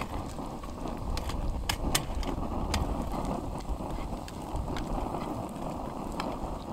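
Frying pan on a wood-burning camp stove, handled and stirred with a spatula: scattered sharp ticks and taps over a steady low rumble.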